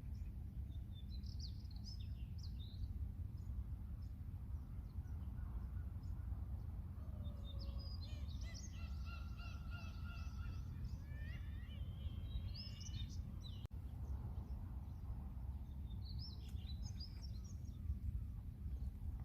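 Seagulls and other birds calling over a steady low rumble: scattered high chirps, with a longer run of calls in the middle.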